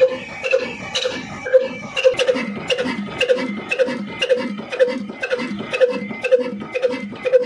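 Old single-cylinder horizontal diesel engine of the Ruston-type 'black engine' kind running slowly and steadily, firing about twice a second, each beat carrying a sharp metallic tick.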